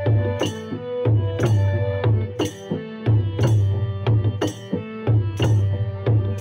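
Instrumental music: a Bodo kham, a long double-headed barrel drum, is struck by hand in a steady repeating beat of about two strokes a second, deep booming strokes mixed with sharp slaps. Under the drum a harmonium holds sustained notes.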